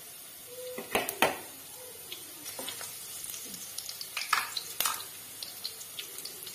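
Chopped garlic and green chillies sizzling in hot mustard oil in a wok on high flame: a tadka frying. A steady hiss with a few sharp pops, two about a second in and two more after four seconds.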